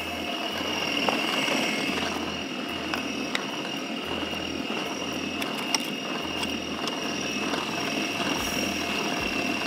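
Electric food processor running steadily, grinding the kebab mince to a smooth paste, with a few sharp clicks over the motor's drone.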